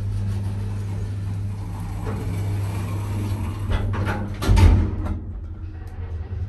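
Vintage single-speed OTIS lift's sliding car doors closing over a steady low hum, then a heavy clunk about four and a half seconds in.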